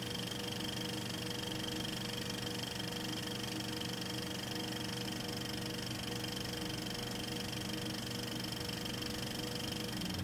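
Steady mechanical whirring hum with a constant high-pitched whine over it, unchanging throughout.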